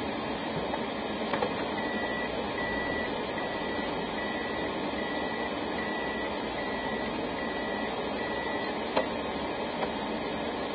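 Steady car cabin and road noise picked up by a dashcam, with a run of about nine short, evenly spaced high electronic beeps, a little under one a second, through the middle.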